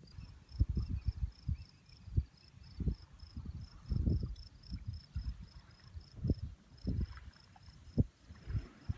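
Wind buffeting the microphone in irregular low gusts. Behind it runs a thin, high, evenly pulsed trill of about five pulses a second, like an insect's.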